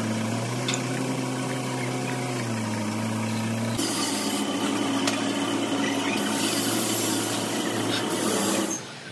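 A truck's diesel engine idling steadily with a low hum. About four seconds in it turns rougher, with added hiss, and the sound cuts off sharply near the end.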